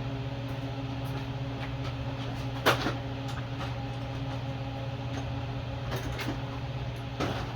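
A few sharp metal clicks and clinks of hand tools, the loudest about a third of the way in and smaller ones near the end, over a steady low hum.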